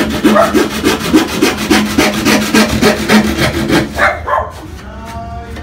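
Hand saw cutting a particleboard sheet with quick, even back-and-forth strokes that stop about four seconds in.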